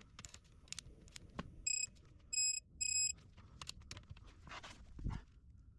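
Three short, high electronic beeps, close together, among light clicks and a dull thump near the end.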